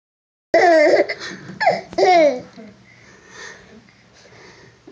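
Brass spring door stop being flicked and twanging with a wobbling boing, three times in quick succession, the first about half a second in; after that only softer sounds.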